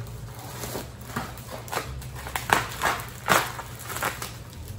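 Plastic bubble wrap crinkling in a string of irregular crackles as a wrapped bottle is handled and cut open with scissors.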